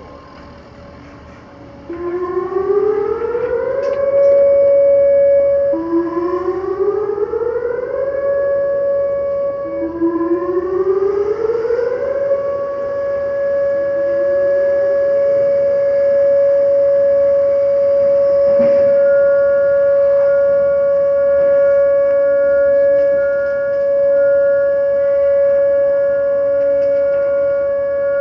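Whelen outdoor warning sirens of the Surry nuclear power station emergency siren system sounding a test. About two seconds in, the sirens wind up in pitch one after another in several staggered starts, then settle into one steady tone that is held. A second, higher and fainter steady tone joins later.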